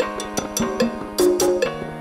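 Background music: a song track with sharp percussion hits over held notes.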